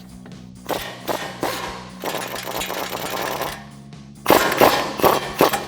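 Impact wrench on a 19 mm swivel socket hammering loose the brake caliper bolts. It runs in rattling bursts: two short ones, a steady run of about a second and a half in the middle, then short, louder bursts near the end.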